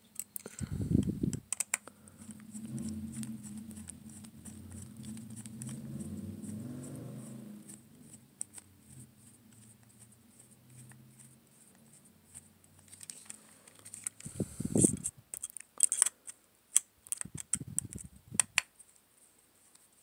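A screwdriver turning a long screw into an aluminium servo saver on an RC steering servo, with small metallic clicks and scrapes. There are two dull handling thumps, about a second in and about fifteen seconds in, and a low hum from about two to eight seconds in.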